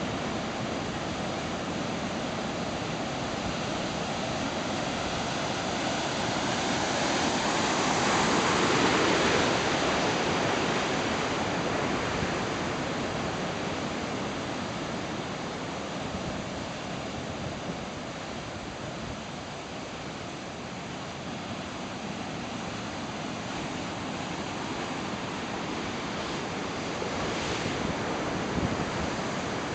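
Ocean surf: a large wave breaks and washes in, building to its loudest about a third of the way through and then slowly subsiding, with a smaller surge near the end.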